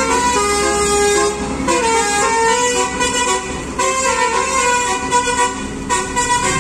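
Mercedes-Benz coach's Basuri multi-tone "telolet" horn playing a melody, its notes changing in quick steps, with short breaks about every two seconds.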